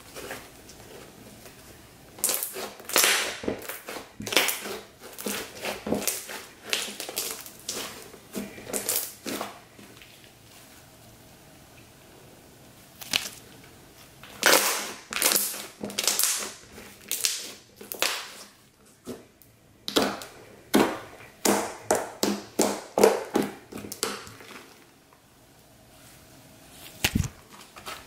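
Elmer's-glue glitter slime being stretched, folded and pressed by hand: irregular bursts of quick sticky clicks and pops, broken by pauses of a few seconds.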